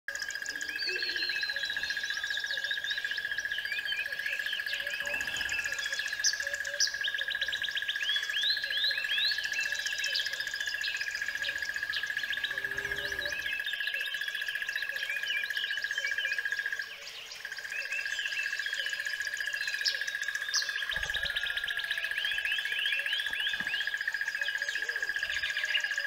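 Many songbirds chirping and trilling together over a steady, high-pitched whine. The whine and the level drop out briefly about two-thirds of the way through.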